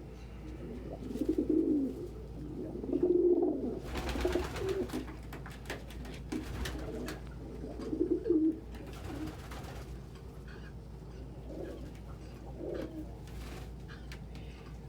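Domestic pigeons cooing in low, repeated coos, strongest in the first half and again about eight seconds in, with a couple of softer coos near the end. Two short rustling bursts come at about four and nine seconds in.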